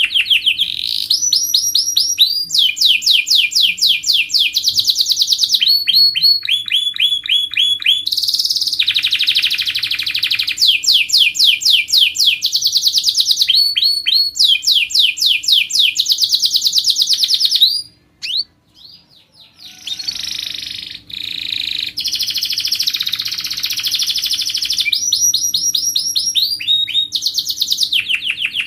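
Domestic canary singing vigorously: long rolling trills of rapid repeated notes, switching from one trill to the next every second or two, with a brief break about two-thirds of the way through.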